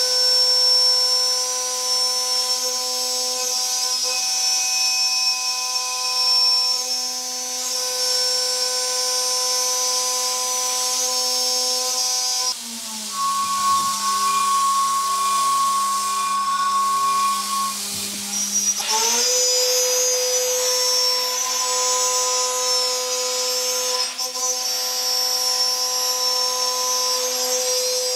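CNC milling machine cutting aluminum plate with a quarter-inch two-flute carbide end mill spinning at about 15,000 RPM: a steady, high-pitched whine. About halfway through, the cutting note breaks off for around six seconds, replaced by a lower hum, then resumes.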